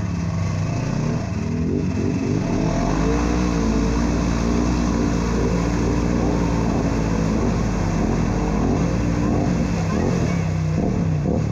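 ATV engine running under load on a trail, its pitch rising and falling repeatedly as the throttle is worked.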